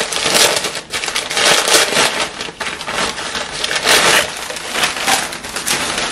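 Packing paper crinkling and rustling in uneven surges as a wrapped dish is unwrapped by hand.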